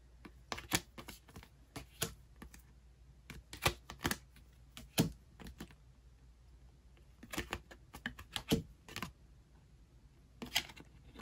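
Photocards being shuffled and flipped in the hands: an irregular scatter of light clicks and taps as the cards knock against one another, some coming in quick little runs.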